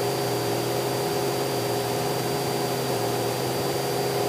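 Single-engine light aircraft's piston engine and propeller at climb power just after takeoff, a steady, unchanging drone.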